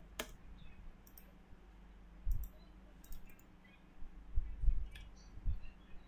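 Computer mouse clicking, single sharp clicks about a second apart, about six in all. A few dull low thumps come in between, the loudest about two-thirds of the way in.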